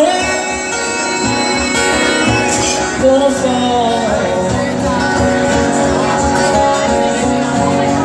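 Live acoustic guitar strummed steadily, with a man singing a drawn-out line over it in the first few seconds; then the guitar plays on alone between verses.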